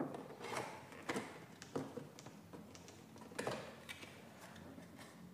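Cardboard box being opened by hand: its flaps are pulled and folded open, giving a string of short, irregular scrapes and rustles.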